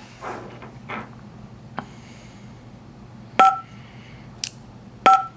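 2GIG Go!Control alarm panel's touchscreen beeping as its keys are pressed: two short beeps about a second and a half apart, with a few faint taps before them.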